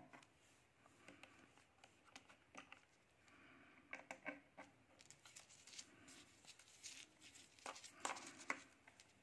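Faint clicks and cable rustling as banana-plug test leads are pushed into the sockets of an inverter-compressor tester box, with a few sharper clicks about four seconds in and again near the end.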